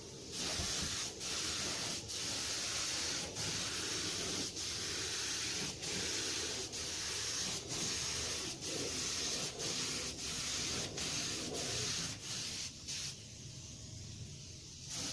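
Gravity-feed compressed-air spray gun hissing as it lays the second coat of clear coat on a car bumper, in passes broken by short breaks about once a second. The spraying stops about two seconds before the end.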